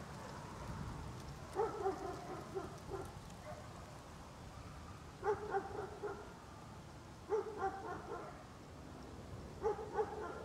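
A dog barking in short clusters of two or three barks, the first about a second and a half in and then a pair roughly every two seconds.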